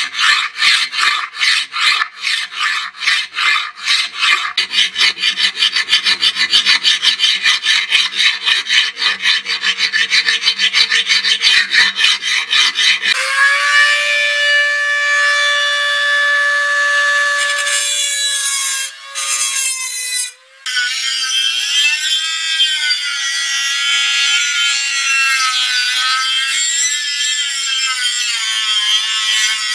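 Flat hand file rasping back and forth along a steel blade in quick, rhythmic strokes. About thirteen seconds in, this gives way to the steady whine of a handheld rotary tool. The tool cuts out briefly twice, then grinds the steel with a small abrasive stone, its pitch wavering under load.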